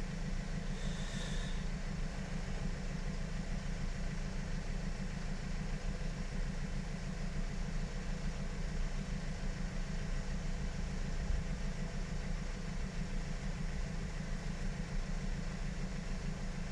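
A steady, low, engine-like mechanical hum.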